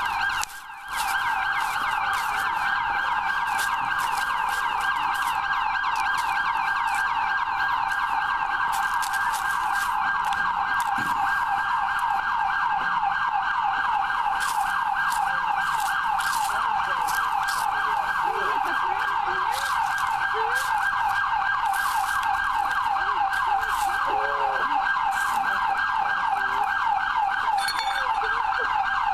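Emergency vehicle siren sounding continuously in a fast, repeating warble, dropping out briefly a little under a second in.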